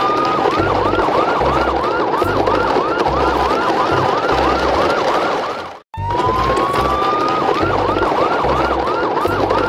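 Looped electronic siren sound effect: a rising wail, then a fast warbling yelp of about two to three rises a second over a low pulsing beat. It cuts out briefly about six seconds in and starts over with the same wail.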